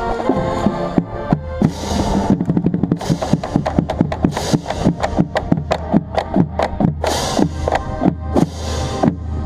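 Marching band playing its show, heard from within the bass drum section: rapid, even drum strokes over sustained brass and wind chords, with bright crashes about two seconds in and again near the end.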